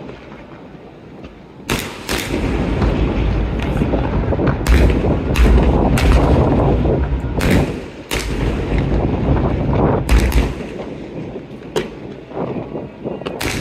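Aerial firework shells bursting at a fireworks display: a quick series of about a dozen sharp bangs with low booms and echo running on between them, starting after a quieter first second and a half.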